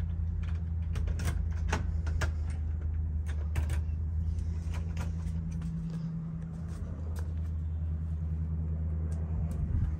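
Steady low rumble of road traffic, with scattered light clicks and taps over it.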